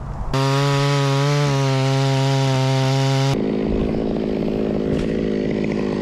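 Two-stroke chainsaw at full throttle cutting eucalyptus wood: a loud, steady engine note that stops abruptly about three seconds in, after which the saw keeps running more quietly at a higher, rougher note.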